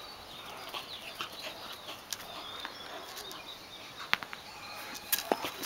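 Small garden birds chirping in the background, with a few sharp clicks about four and five seconds in.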